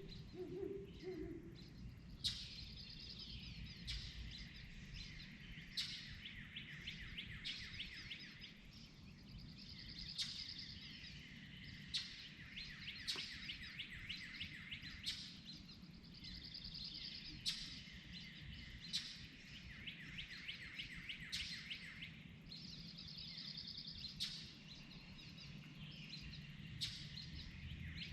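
Dawn chorus of songbirds: overlapping trills and chirps, with a sharp call note about every two seconds. An owl's low hoot fades out in the first second.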